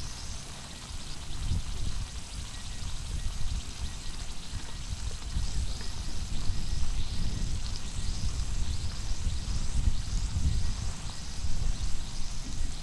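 Thick-cut beef tongue sizzling on a hot iron griddle plate, a steady crackle of spitting fat, over a low rumble of wind on the microphone.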